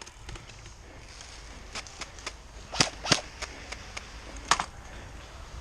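Scattered single airsoft gun shots, each a sharp pop: a faint one a little under two seconds in, then three louder ones, two close together around three seconds in and another about a second and a half later.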